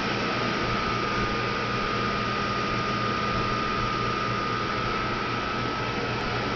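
Water-damage drying equipment running steadily: a constant blower rush with a thin, steady whine and a low hum underneath.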